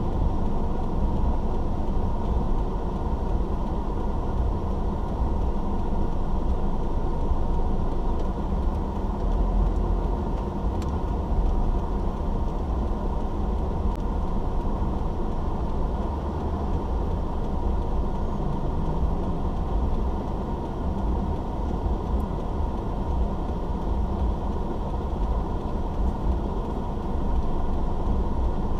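Steady, dull rumble of a car driving, heard from inside the cabin: engine and road noise with most of the sound low down.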